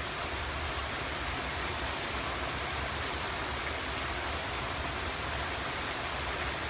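Steady rain falling on the ground and patio, an even hiss with faint scattered drop taps.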